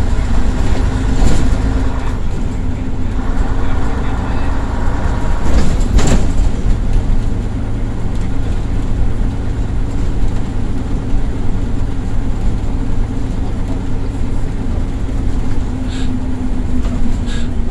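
Leyland Titan PD3 double-decker bus's six-cylinder diesel engine running steadily on the move, heard from inside the lower saloon as a low drone with a whine that holds its pitch. A few knocks and rattles of the body, the sharpest about six seconds in.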